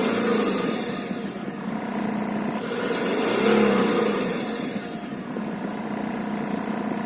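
Saab 9-3 2.2 turbodiesel engine revved twice, its turbocharger giving a loud high whistle that rises and falls with each rev. The severe whistle is the sign of a faulty used turbocharger, which the owner expects will have to be replaced.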